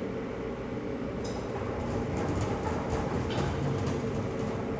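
Steady machinery rumble with a constant hum, and faint metallic clinks about a second in and again near three seconds.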